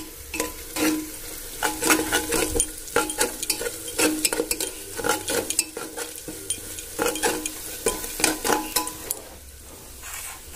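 A steel spoon stirs and scrapes spiced fried onions in an open aluminium pressure cooker, clinking irregularly against the pot over the sizzle of frying. The stirring eases off for a moment near the end.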